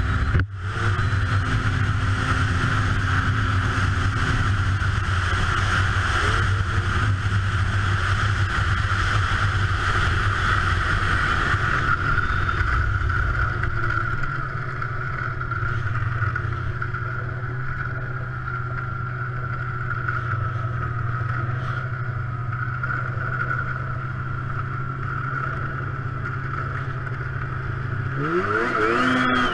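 Snowmobile engine running at a steady cruising speed, with a quick rise and fall in pitch near the end as the throttle is blipped.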